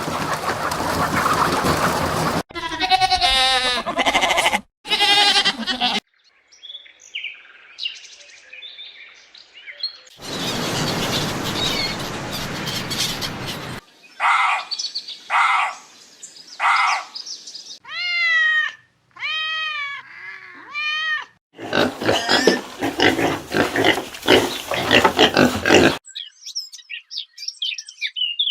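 A string of different animal calls cut one after another: rough, noisy calls, pulsed pitched calls, a quick run of rising-and-falling calls, and high bird chirps, each clip starting and stopping abruptly.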